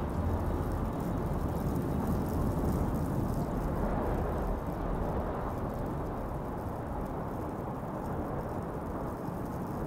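Steady low rumble of distant city traffic, an even wash of noise with no distinct events.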